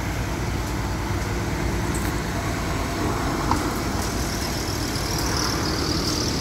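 Volvo wheeled excavator's diesel engine running steadily as the machine raises its boom and demolition attachment, with a single sharp knock about halfway through.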